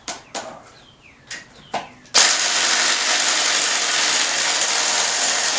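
A few light metallic clicks, then about two seconds in a sudden loud, steady rushing whir that holds for nearly four seconds and cuts off abruptly.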